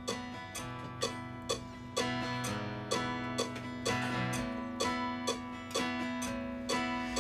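Guitar strumming chords in a steady rhythm, about two strokes a second.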